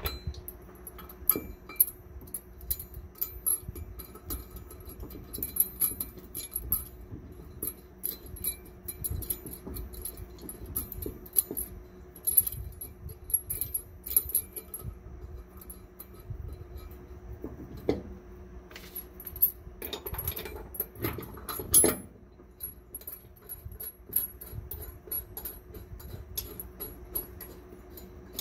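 Metal clinking and small clicks of large steel bolts, nuts and washers being handled and threaded by hand into a steel frame bracket, with a denser spell of rattling about two-thirds of the way through. A faint steady hum runs underneath.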